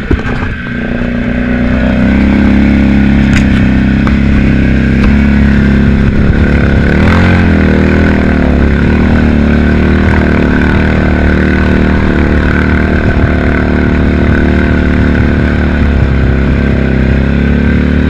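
Polaris RZR side-by-side's engine running hard as it ploughs through deep water, with water spray hissing and splashing around the machine. The revs climb over the first two seconds, hold steady, and dip briefly and recover about seven seconds in.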